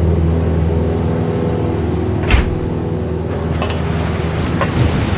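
Steady drone of a jet transport plane's engines, with a sharp clunk about two seconds in as the side hatch in the fuselage opens, and a couple of fainter clicks after it.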